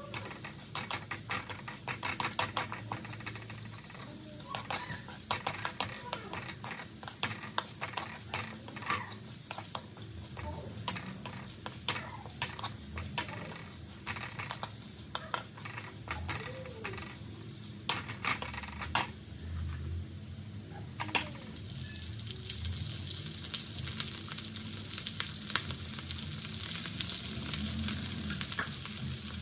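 Wooden spatula scraping and tapping a metal wok while minced garlic fries in a little oil with a light sizzle. About 21 seconds in, a much louder steady sizzle starts, as cooked rice is stir-fried in the hot wok.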